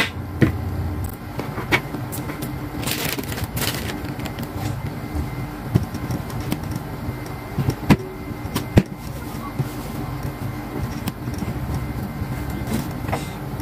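Scattered light clicks and knocks of a small knife and hands against a table while playdough is cut and pressed, over a steady low hum.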